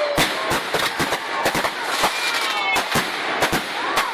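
Aerial fireworks going off in a rapid, irregular string of sharp bangs and crackles, several a second.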